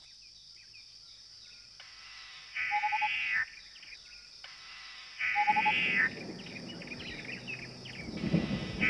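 Boubou shrikes calling: a call about a second long with a short lower note in it, given three times at intervals of two and a half to three seconds, over a steady high insect drone.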